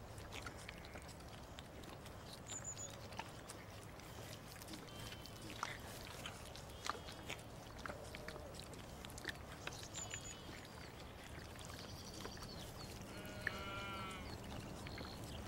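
A sheep bleats once, about two seconds before the end. Underneath are a steady low background, scattered faint clicks and a few short high chirps.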